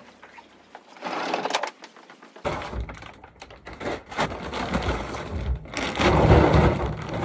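Rustling, scraping and knocks of a heavy feed bag being handled and lifted, loudest near the end.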